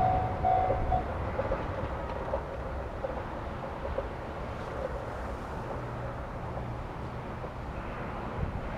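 Japanese level-crossing warning bell ringing its repeated electronic ding, stopping about a second in. A steady low rumble carries on after it.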